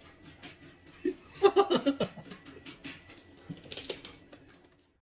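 A short burst of laughter, a quick run of chuckles about a second in, followed by a few fainter bits.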